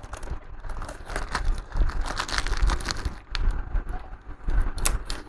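Sellotape being peeled and pulled off a laptop casing, with irregular crackling and sharp tearing snaps.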